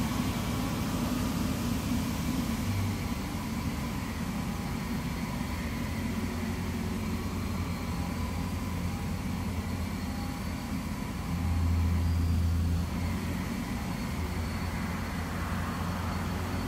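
Borehole drilling rig's engine running steadily, with a hiss of water spray from the rig in the first few seconds. The engine gets louder for about a second and a half roughly two-thirds of the way through.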